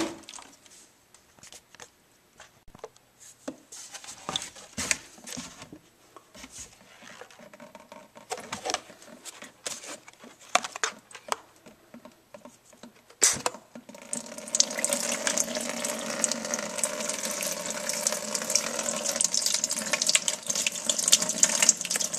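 Scattered handling clicks and rustles of cloth and plastic, then a sharp click about fourteen seconds in and a steady stream of water running out of a plastic water jug through a pellet hole.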